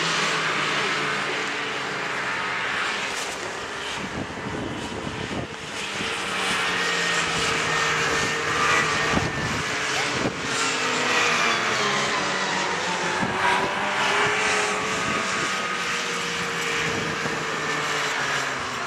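Snowmobile engines running at speed, their note rising and falling.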